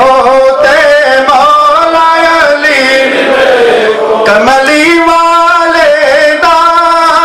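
Devotional singing of a Punjabi naat: a male voice drawing out long held notes that glide slowly from pitch to pitch.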